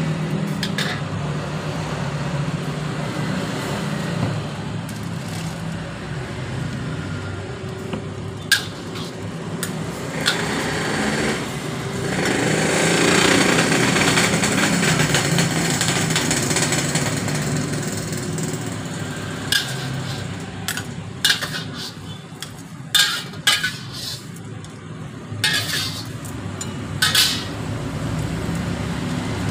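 Steel ladle and spatula clanking and scraping against a large steel wok over a steady low hum from the stove. A stretch of sizzling comes about twelve seconds in as liquid goes into the hot wok. A quick run of sharp clanks follows in the last third.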